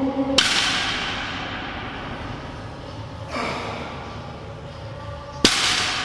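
Loaded 100 kg barbell clanking during sumo deadlift reps. There is a sharp clang about half a second in, a softer one midway, and a sharp clang near the end as the plates touch down on the floor. Each clang rings on afterwards.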